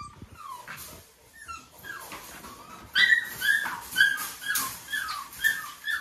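A dog whining over and over: short, high whines, each falling in pitch, about two a second, growing louder about halfway through.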